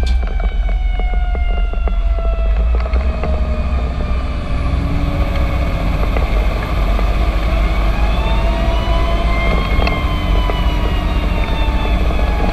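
Fire engine siren wailing, its pitch sliding slowly down, then rising and falling again, over the heavy rumble of the fire engine's motor and road noise. There are a few knocks and rattles in the first few seconds.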